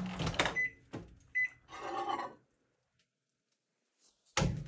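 Panasonic microwave oven's running hum cuts off as the door-release button is pressed and the door clicks open, followed by two short high beeps. A brief scraping as the plate is taken out, then a loud thud near the end as the door is shut.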